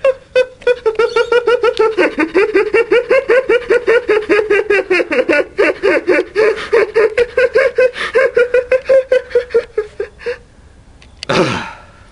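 A person laughing in a high-pitched, rapid, even cackle of about six pulses a second, which stops about ten seconds in. Near the end comes a short sound falling steeply in pitch.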